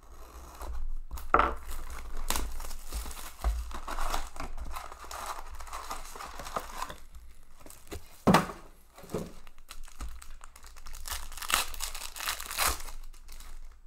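Plastic shrink-wrap being slit and crinkled off a hockey card box, the cardboard box opened and foil card packs handled, with a sharp crack about eight seconds in. Near the end a foil card pack is torn open with a crinkling rip.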